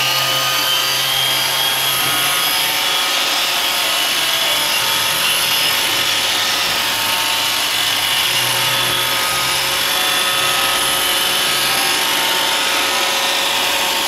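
iRobot Roomba 530 robot vacuum cleaning a hard floor: a steady whine from its vacuum motor and rotating brushes over a rushing hiss of airflow, with small shifts in the low hum as it drives and turns.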